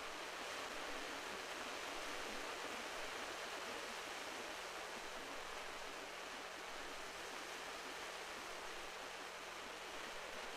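Steady wash of sea surf along a rocky shore, an even hiss without distinct breaking waves.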